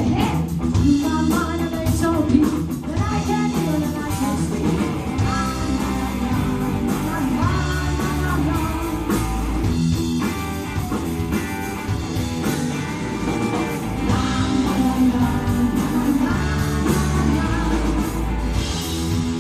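Live blues-rock band playing: a woman singing over electric guitar, bass guitar and drums.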